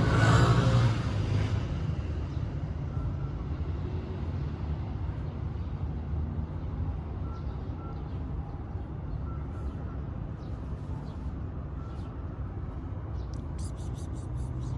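A motor vehicle passes close by, loudest at the start and fading over about two seconds, then a steady low rumble of street traffic remains, with a few faint high ticks near the end.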